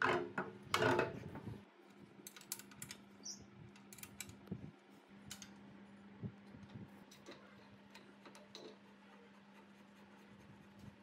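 Heavy metal clatter as the cast-iron air compressor pump head is set down onto the tank's mounting plate, loudest in the first second and a half. Then scattered light clicks and taps of hand tools on the mounting bolts, over a faint steady hum.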